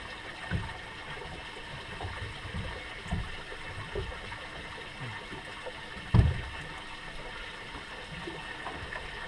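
Water lapping and sloshing irregularly against a drifting boat's hull, with one sharp thump about six seconds in.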